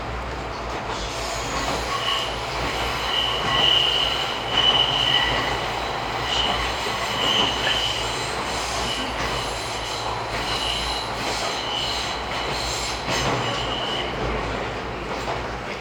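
Izuhakone Railway 3000 series electric train running, its wheels squealing on curves: a high squeal that comes and goes many times over for most of the stretch, over a steady rumble of the running gear.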